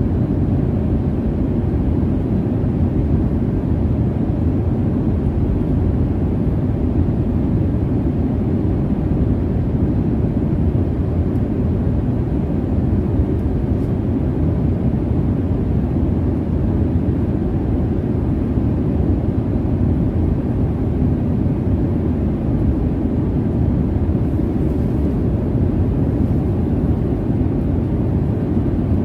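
Jet airliner cabin noise in flight: a steady low rumble and rush of engines and airflow, even and unchanging.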